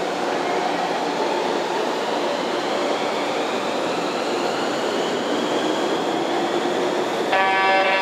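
Tram running in toward the stop over the rails, a steady rumble with a faint whine slowly rising in pitch. Near the end, the electronic warning tone of the tram-stop crossing starts, a steady, louder multi-note tone.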